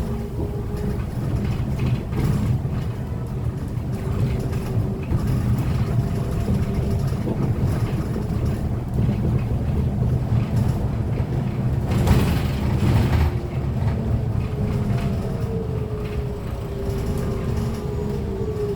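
Chinese-made city bus heard from inside while driving: a heavy road and drivetrain rumble with a steady whine that glides down in pitch near the end as the bus slows. There is a brief louder noise about twelve seconds in.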